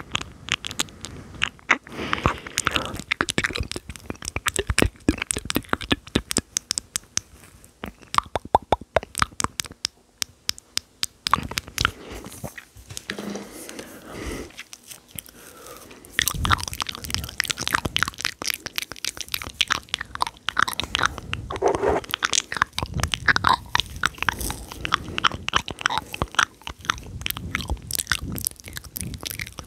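Close-miked ASMR mouth sounds: dense runs of rapid wet clicks and smacks of tongue and lips. They thin out into a quieter lull about a third of the way in, then pick up again.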